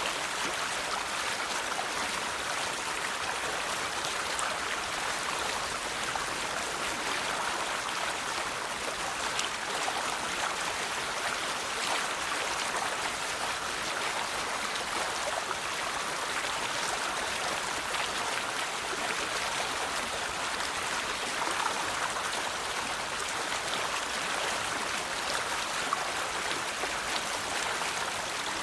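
River water flowing and splashing over stones: a steady rushing hiss without pauses.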